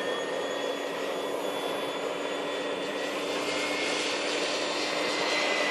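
Jet aircraft flying overhead: a steady engine rush with a thin high whine, edging up in pitch and getting a little louder toward the end.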